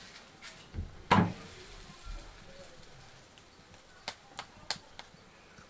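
A loud knock about a second in, then a few sharp clicks spaced a fraction of a second apart near the end.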